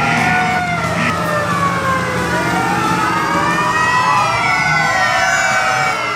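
Many fire-truck sirens wailing at once, their overlapping tones rising and falling out of step with one another over a low steady rumble.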